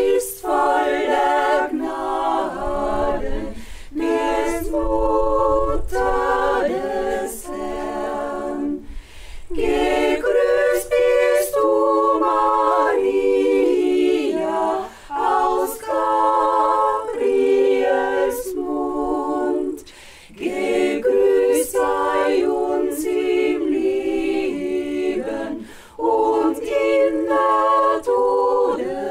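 A women's choir singing a cappella, with no instruments, in phrases broken by short pauses.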